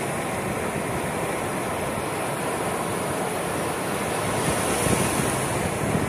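Caspian Sea surf: small waves breaking and washing up a sandy shore in a steady rushing hiss, a little louder about five seconds in. Low wind rumble on the microphone runs underneath.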